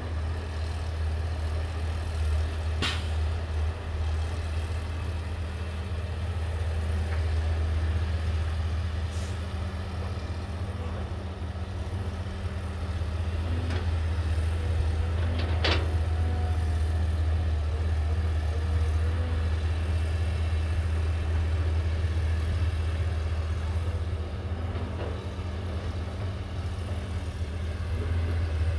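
Caterpillar 320C L excavator's diesel engine running steadily as it digs and swings to load a dump truck, with two sharp clanks, one a few seconds in and one about halfway through.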